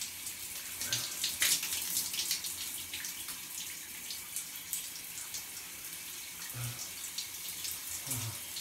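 Shower spray running steadily and splashing onto a person standing under it, a continuous hiss with small irregular spatters.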